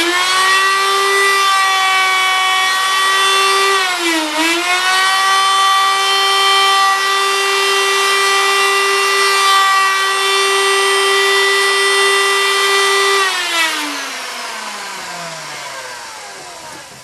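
Electric hand router running at full speed with a steady high whine while cutting a hinge mortise in a wooden door, its pitch dipping briefly under load about four seconds in. Near the end it is switched off and winds down, the whine falling in pitch and fading.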